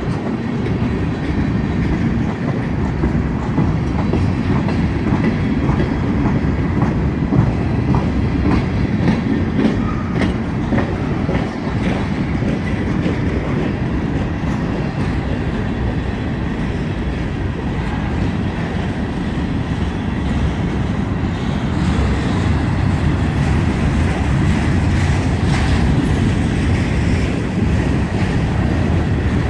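Train cars rolling past, wheels clacking over the rail joints above a steady rolling noise from the moving train.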